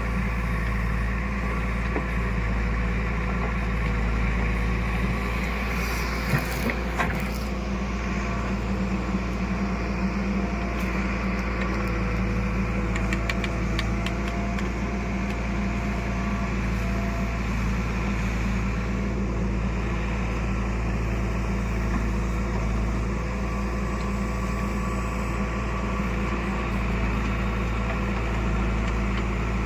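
Diesel engine of the heavy machinery at a mud-loading job, a backhoe loader or farm tractor, running steadily. There is a brief knock or two about six seconds in.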